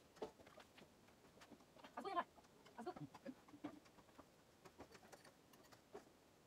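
Near silence: a quiet room with faint scattered small sounds, and one short pitched call about two seconds in.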